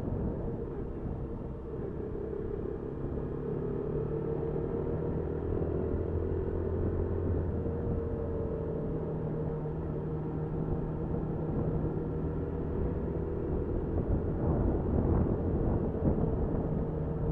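Motorcycle engine running steadily while riding, picked up by the bike's dashcam, with a low rumble of road and wind noise.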